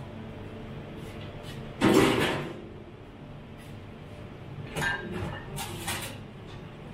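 Kitchen handling noise over a low steady hum: one loud knock with a short scrape about two seconds in, then a few quick knocks and clatters near the end.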